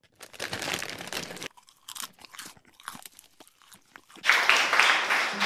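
Popcorn crackling and crunching: a dense run of crackle for about a second and a half, then scattered single sharp pops, then a louder dense burst of crackle near the end.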